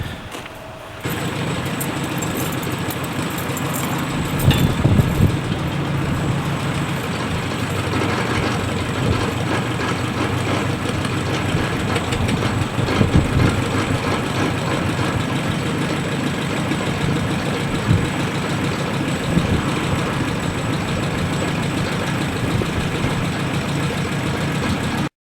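Antique International Harvester hay baler running, its engine going steadily with a few heavier knocks scattered through. The sound cuts in abruptly about a second in.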